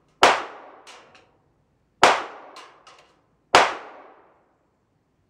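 Gunshots ringing through a covered shooting range: three sharp bangs about a second and a half to two seconds apart, each with a short ringing tail, and a fourth at the very end.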